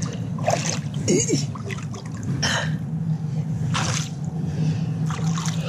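Shallow river water splashing and sloshing around a wading person's legs and hands in about five short splashes, over a steady low hum.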